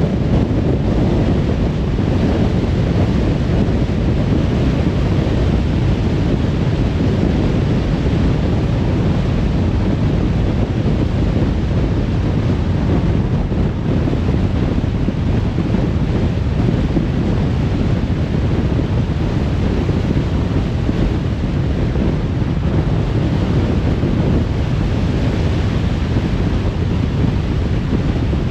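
A car driving at speed on a motorway: steady tyre and wind rush.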